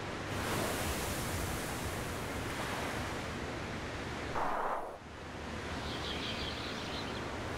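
Steady wash of ocean surf, swelling briefly and dropping away about five seconds in before building up again.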